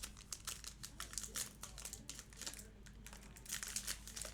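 Card pack wrapper crinkling and crackling as it is handled and torn open, in many quick irregular crackles.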